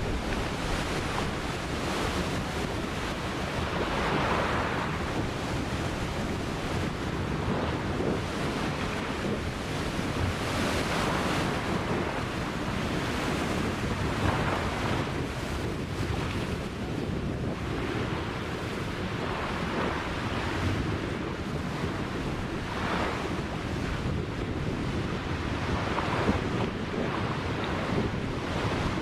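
Ocean surf breaking and washing ashore, a continuous rushing hiss that swells with each wave every few seconds, with wind rumbling on the microphone.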